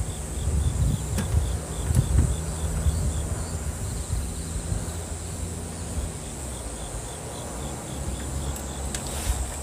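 Insects calling: a steady high shrill, with a fainter chirp repeating about three times a second through the first half, over a low rumble.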